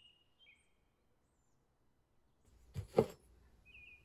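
Quiet background with a few faint bird chirps near the start and again near the end, broken by one brief, louder noise about three seconds in.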